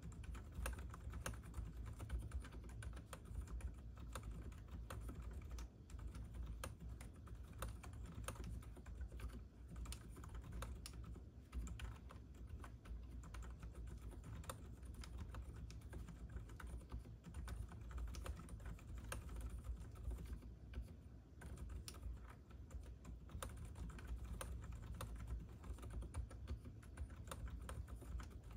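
Continuous typing on a Hansung GK787SE OfficeMaster keyboard with lubricated, low-noise Hawk non-clicky switches: a fast, even run of quiet key strokes.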